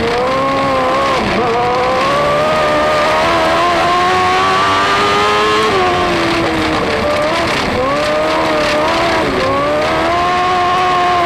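Dwarf car's motorcycle engine at racing speed, heard from on board: the pitch climbs steadily and then drops sharply as the driver lifts, about four times.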